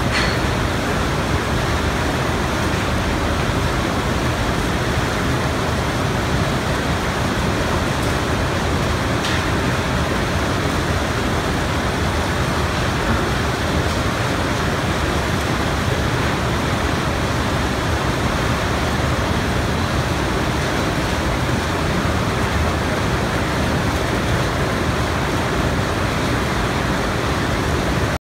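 Steady, loud din of a recycling sorting plant's machinery: conveyor belts and sorting equipment running continuously as mixed paper and plastics are carried along the line.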